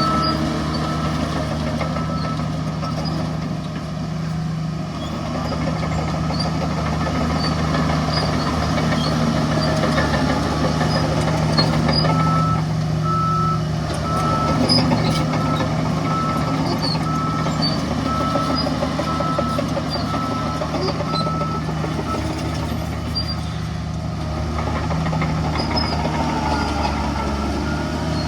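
Heavy diesel earth-moving machinery running under load, with a reversing alarm beeping about once a second at the very start and again for about nine seconds from near the middle.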